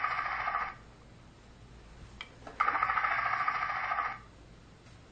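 Electronic ringing sound effect from a toy train playset's small speaker: a trilling ring that stops about two-thirds of a second in, then, after a click, rings again for about a second and a half.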